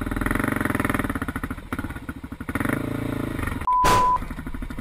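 Dirt bike engine running with a rough, pulsing beat. Near the end a loud, steady high beep cuts in for about half a second.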